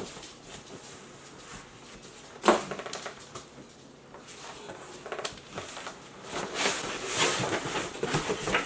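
Cardboard rustling and scraping as packing pieces and a smaller box are pulled out of a large cardboard shipping box, with a sharp knock about two and a half seconds in and busier rustling near the end.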